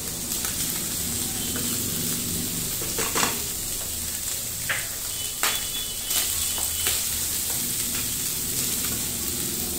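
Boiled meat, green beans and carrots sizzling in oil in a non-stick frying pan, with a steady hiss. A spatula stirs the mix, clicking and scraping against the pan now and then.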